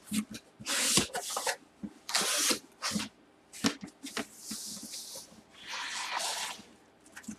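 Cardboard box being opened by hand: flaps scraping and rubbing against each other in about four short bursts, with light knocks and taps in between.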